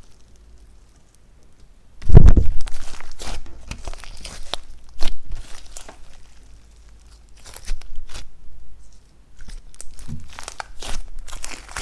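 Hands kneading, stretching and pressing a large batch of slime mixed with makeup, glitter and clay: sticky crackling and squelching, with the loudest squelch about two seconds in and further bursts of crackles later on.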